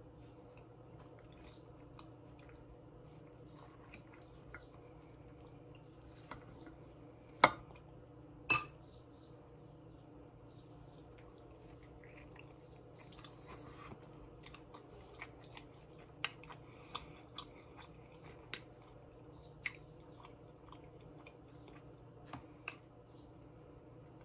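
A person eating baby back ribs close to the microphone: faint, scattered chewing and wet mouth clicks, with two sharper clicks about seven and eight seconds in, over a steady low hum.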